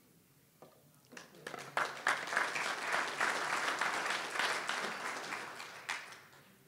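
Audience applauding: clapping starts about a second in, swells, then dies away near the end.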